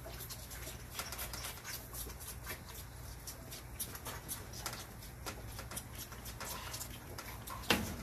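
Whitetail fawns sucking and smacking at bottle nipples on a feeding rack: a run of quick small clicks and wet sucks, with a louder knock near the end.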